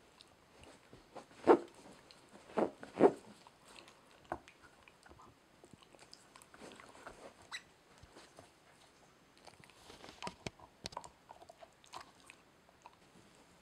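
A dog gnawing and biting a hard rubber Busy Buddy Waggle toy: irregular chewing clicks and knocks, three loud ones about one and a half to three seconds in, and a cluster of sharper clicks around ten seconds in.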